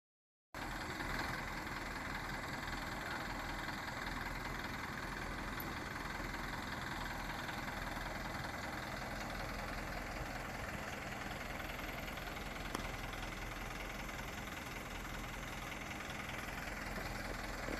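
Diesel dump truck engines idling steadily, with no rise or fall in speed, and a single brief click about thirteen seconds in.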